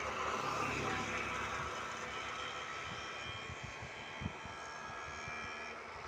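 Steady low outdoor rumble with a light hiss, with a few soft low thumps a little past the middle.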